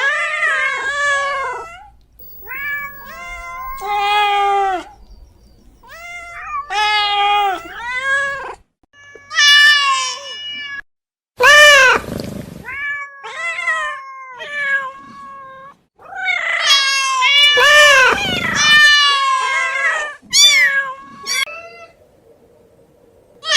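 Domestic cats meowing over and over, a run of drawn-out calls that rise and fall in pitch, some overlapping one another, with short pauses between.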